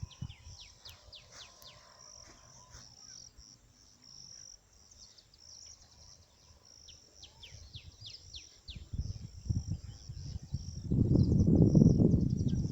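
Crickets chirping in a steady pulsing trill, with short high falling chirps over them. From about nine seconds in a loud, low rumbling noise builds and dominates to the end.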